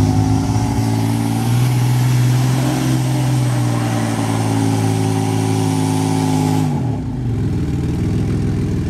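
Four-wheel-drive engines revving hard under load as a Mitsubishi Pajero V6 tows another Pajero up a muddy rut on a recovery strap. The revs climb near the start, hold high, then fall away about seven seconds in.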